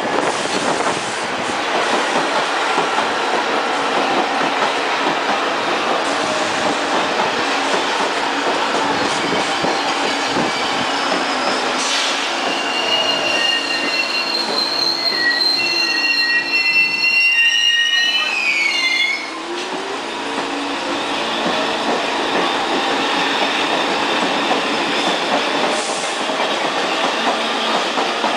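New York City Subway train running past a station platform with a steady rumble of wheels on rail. From about twelve seconds in, the wheels squeal for several seconds in a cluster of high tones that glide upward, then cut off suddenly.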